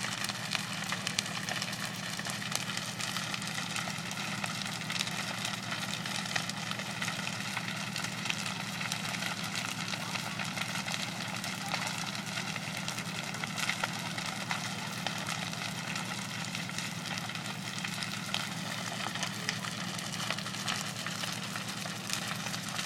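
A burning wood-frame house crackling and popping in many small, irregular snaps, over the steady low hum of an idling engine.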